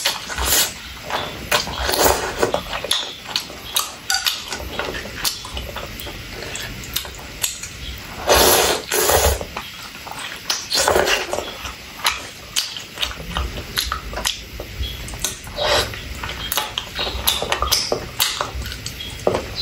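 Close-up slurping of spicy soup noodles and wet chewing, with many short smacks and clicks and a few longer, louder slurps.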